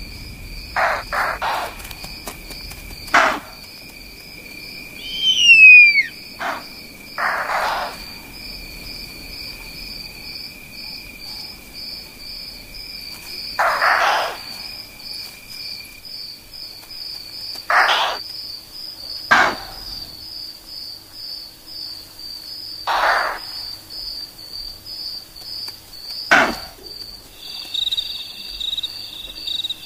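Night insect chorus: crickets trilling steadily in a high pulsing tone. Short rasping noisy bursts break in about a dozen times, and a single loud falling whistle comes about five seconds in.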